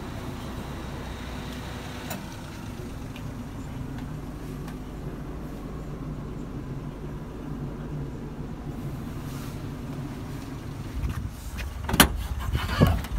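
1996 Daihatsu Hijet van's engine idling steadily, heard from inside the van. About twelve seconds in, a sharp click and a few rattling clunks come as the rear door handle is worked.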